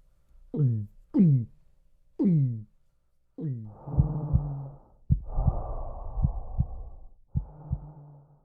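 Stomach and swallowing sound effects: four short gulps, each dropping sharply in pitch, then about four seconds of gurgling, sloshing noise with a low hum and several dull thuds.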